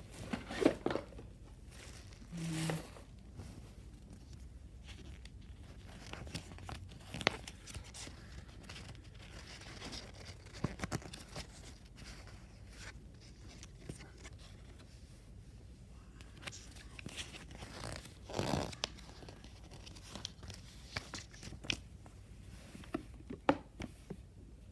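Packaging being handled during an unboxing: scattered rustling, crinkling and tearing of wrapping, with a few sharper knocks and handling clicks.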